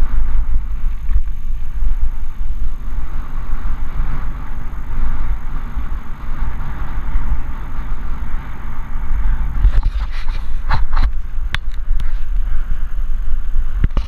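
Steady low rumble of wind and trail vibration on the microphone of a camera carried on a mountain bike riding a dirt trail. A few sharp clicks and rattles come about ten seconds in.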